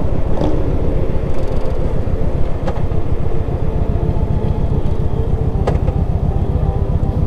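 Large V-twin touring motorcycle cruising at steady speed, its engine and exhaust giving a fast, even low pulsing under wind and road noise on the rider-mounted microphone.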